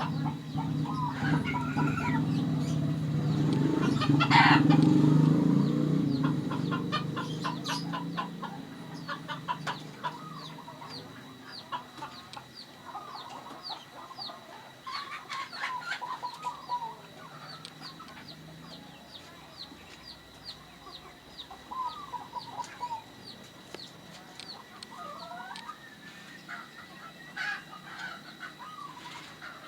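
Zebra doves calling among chickens clucking. A loud, low fowl call swells and fades over the first six seconds, followed by scattered short calls and a steady run of faint high chirps.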